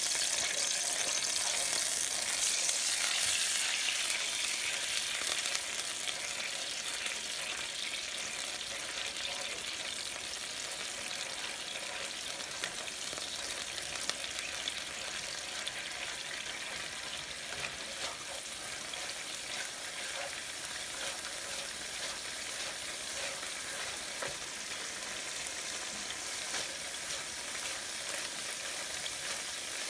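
Tomato paste sizzling in hot oil in a pan while a wooden spoon stirs and scrapes it, with a few light knocks of the spoon. The sizzle is loudest in the first few seconds, then settles to a steady hiss.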